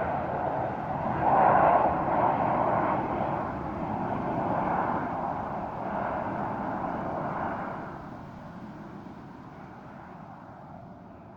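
Large jet airliner's engines fading as it flies away after passing overhead, a dense rumbling roar that dies down steadily and drops off noticeably about two-thirds of the way through.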